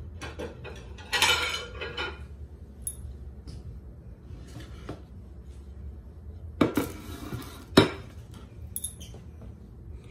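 Kitchen dishes and cutlery clinking and knocking on a counter: a rattle of handling about a second in, then two sharp knocks about a second apart roughly two-thirds of the way through.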